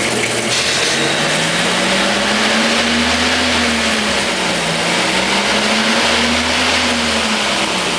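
CNC milling machine running: a steady loud hiss with a low hum whose pitch rises and falls twice, about three seconds apart.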